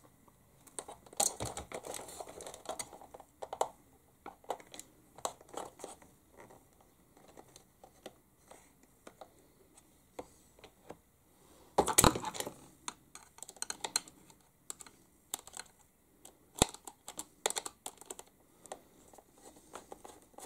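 Small clicks, taps and rattles of a plastic 1/16-scale RC truck body and small hand tools being handled as the body is screwed back on, with one louder clatter about twelve seconds in.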